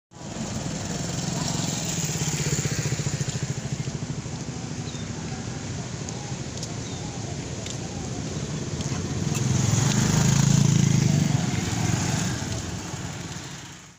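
Small motorcycle engines running as they pass close by, swelling twice, loudest about ten seconds in.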